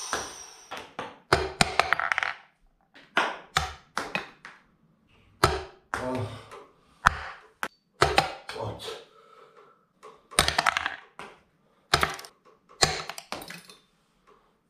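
Thrown plastic push pins thunking and tapping as they land, about twenty short hits at irregular intervals.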